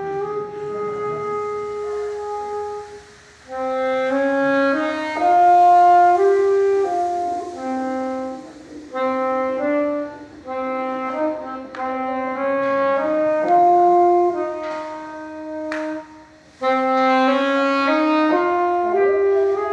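Saxophone playing a slow melody of held notes, in phrases separated by short pauses.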